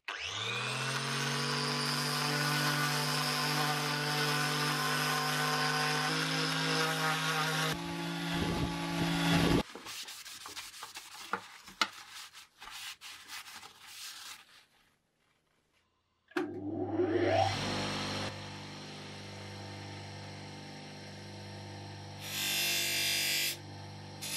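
An electric power tool spins up and runs steadily for several seconds, then stops. Light rubbing and handling of the steel slicer blade follows. Then a bench polisher's motor spins up with a rising whine and hums, with a louder hiss near the end as the blade is pressed against the sewn buffing wheel.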